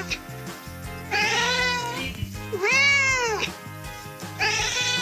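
A domestic cat meowing three times in long, drawn-out calls, the middle one loudest, its pitch rising and then falling.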